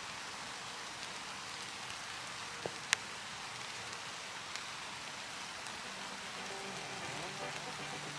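Steady hiss of woodland ambience, with two sharp clicks close together about three seconds in. Faint music fades in over the last couple of seconds.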